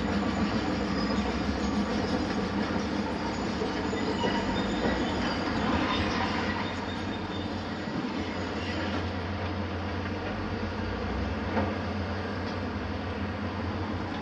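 Heavy demolition machinery running together, a tracked mobile crusher and hydraulic excavators, making a dense, steady mechanical din. It eases a little about halfway through, leaving a steadier low hum, with one short knock near the end.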